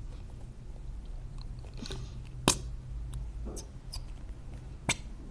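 Plastic glue bottle and plastic tub being handled while glue is squeezed out: soft squelching and a few sharp clicks, the loudest about two and a half seconds in and again near the end, over a steady low hum.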